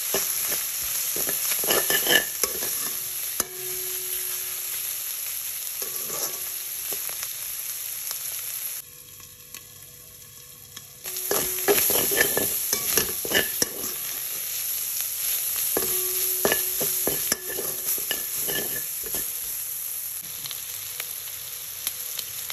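Dried sprats, onions, garlic and green chillies sizzling in oil in a stainless steel pan, stirred with a metal spoon that scrapes and clinks against the pan in repeated strokes. About nine seconds in, the sizzle drops away for about two seconds.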